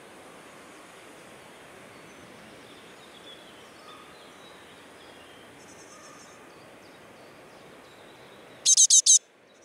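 Steady outdoor hiss with faint high bird calls here and there. Near the end comes a loud, close burst of four quick high-pitched great tit calls.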